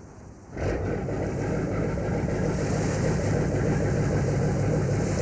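A ferry's engine running with a steady low drone, which starts suddenly about half a second in.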